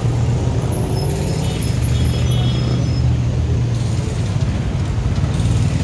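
City street traffic, with the steady low hum of vehicle engines running close by.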